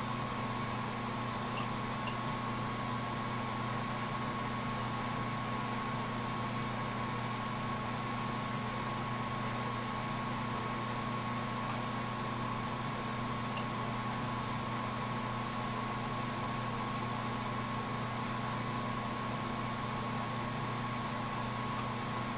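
Lampworking bench torch burning with a steady hiss, over a constant low hum and a thin steady whine of running workshop equipment; a few faint ticks.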